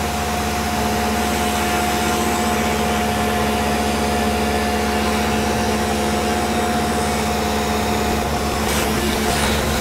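Tormach PCNC milling machine running a CNC pass, its end mill cutting a pocket down in small steps into a rifle stock: a steady whine from the spindle over a constant hiss of cutting. About nine seconds in, the cutting sound changes slightly.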